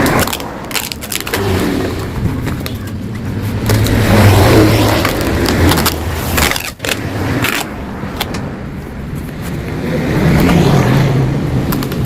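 Yamaha RX-King's two-stroke single-cylinder engine revving through an exhaust hollowed out (bobok) for a crisp, growling note. The revs rise and fall back several times, with a sharp momentary drop about halfway.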